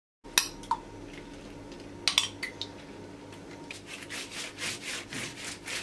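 Silicone pastry brush swishing across a thin yufka pastry sheet on a wooden board, spreading an oil-and-milk wash in quick strokes about three a second. A few sharp taps come first.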